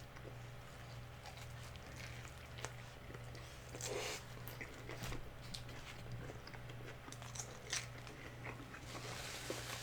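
Close-miked biting and chewing of crispy deep-fried chicken flautas: scattered small crunches and mouth clicks, with louder crunches about four seconds in and near eight seconds. A steady low hum runs underneath.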